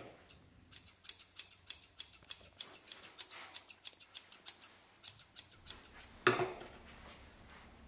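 New pet-grooming scissors snipping quickly through a Yorkshire Terrier's coat, a rapid run of crisp snips, about four or five a second, lasting some five seconds. Near the end there is one louder thud.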